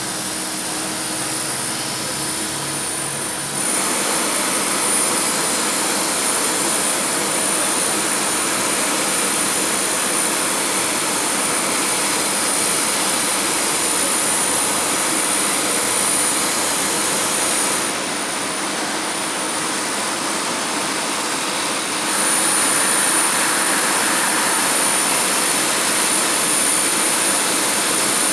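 Boeing 767 auxiliary power unit running steadily on the parked jet: a continuous turbine rush with a constant high whistle. The level steps up about three and a half seconds in, dips for a few seconds past the middle and comes back louder.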